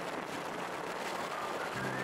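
Steady wind and road rush from a Super Cub 110 motorcycle riding along, picked up by the bike-mounted camera. Background music comes in near the end.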